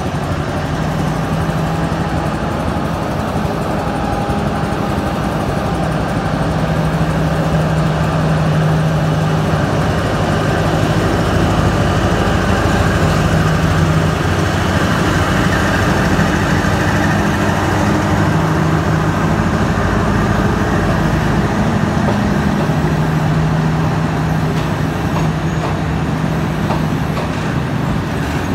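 Diesel locomotive 4151 pulling a passenger train out of the station, its engine running with a steady low drone. The drone is loudest about halfway through as the locomotive passes, and the coaches then roll by with a continuous rumble.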